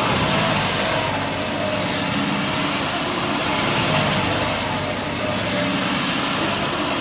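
Massey Ferguson tractor's diesel engine running hard as the tractor spins in tight circles on loose dirt. The sound swells and fades every couple of seconds as it comes round.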